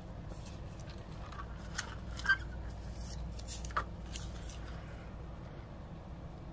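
A few scattered short, crisp clicks and crunches from eating fried seafood and handling the food, over a steady low background hum.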